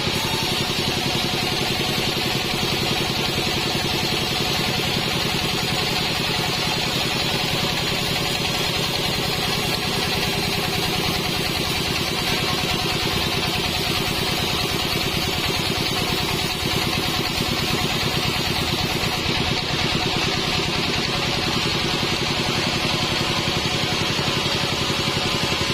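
Band sawmill's engine running steadily at an even speed, with a fast, regular pulsing and a hiss over it.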